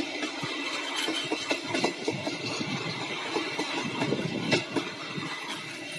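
Train of passenger coaches rolling past at close range, the wheels knocking and clacking irregularly over the rail joints.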